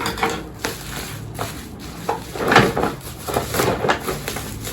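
Plastic packaging and bubble wrap being handled and pulled off a boxed ring light: irregular crinkling and rustling, with a louder burst of crackling about halfway through.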